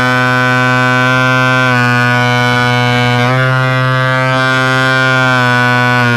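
RC plane's motor and 13x10 propeller droning steadily in flight, heard from an onboard camera. The pitch dips slightly a little under two seconds in and rises again a little after three seconds.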